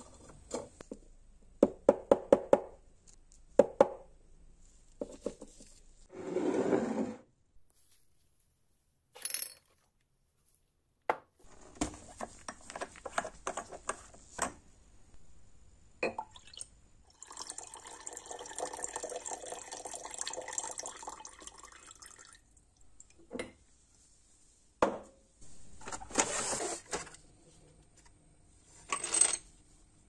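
Small metal parts clinking and knocking on a wooden workbench. Then liquid is poured steadily into a glass jar for about five seconds to make an electrolysis bath for rust removal. Near the end come a few more knocks and clinks.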